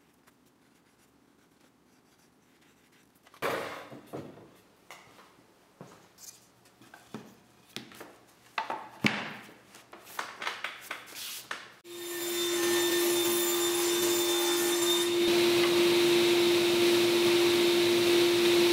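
Wooden strips and an end-grain board being handled on a workbench: scattered knocks and rubbing of wood on wood. About two-thirds of the way in, a woodworking machine starts up and runs with a steady hum. A few seconds later a higher hiss grows stronger.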